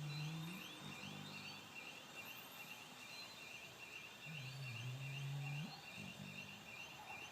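Labrador retriever snoring in her sleep: low-pitched snores, one trailing off just after the start and another about four to six seconds in, each followed by a shorter breath. A steady high chirping runs underneath.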